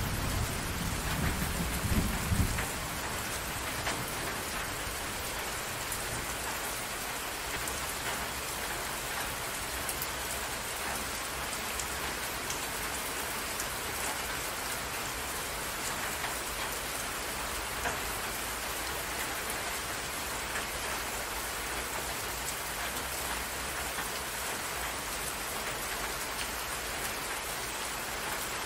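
Steady rain falling on water, an even hiss of many drops. A low rumble of thunder fades out in the first two or three seconds.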